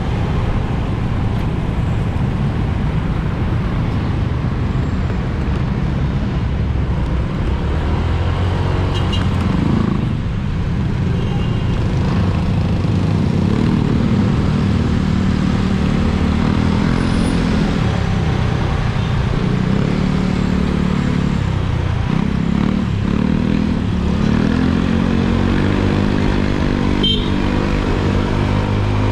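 Motorcycle engine running under way, its pitch rising and falling several times with the throttle, over steady wind and road noise on the camera's microphone.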